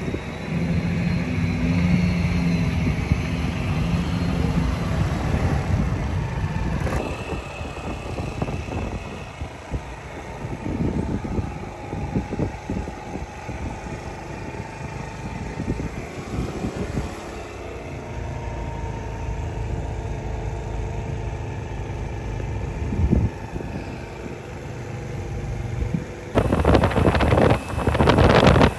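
Vehicle engines running at low speed as a trailered boat is pulled past. About 26 seconds in, this gives way abruptly to loud wind buffeting the microphone on a moving scooter.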